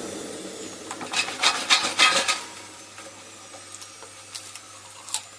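A cluster of short scraping, rasping noises from about a second in, as fries and sausage are moved about in a pulled-out air fryer basket. The noises die down after a second or so, leaving a faint low steady hum and a couple of light clicks.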